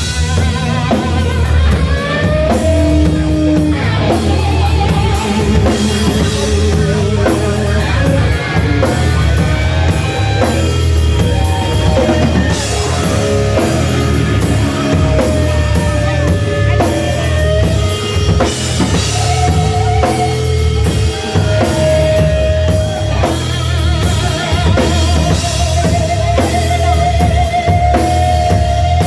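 Rock music with a steady drum-kit beat and guitar, with held, wavering melody lines over it.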